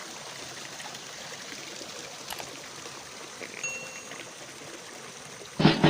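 Stream water running steadily, with a brief high whistle a little past halfway. Loud music starts near the end.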